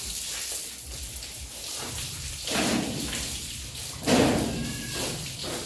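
Water from a hose spraying onto a cow's hide and the wet concrete floor, a steady hiss with two sudden louder splashing bursts about two and a half and four seconds in.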